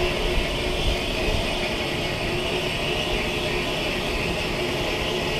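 BR Standard Class 5 steam locomotive No. 73082 'Camelot' standing still, giving off a steady hiss and roar of steam with a faint steady hum.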